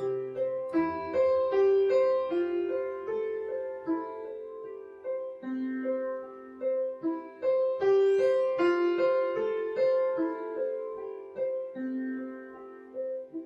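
Background music: a piano melody over one note repeating about twice a second.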